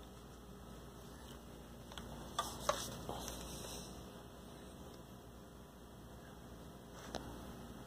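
Two sharp clicks close together about two and a half seconds in, then a brief rustle and another click near the end, from hands handling the plastic drone and its remote controller, over a steady low hum.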